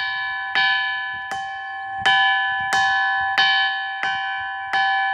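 A ringing rock struck again and again with another stone, about eight strikes at a steady pace. Each strike gives a clear, bell-like ring of several tones that fades before the next.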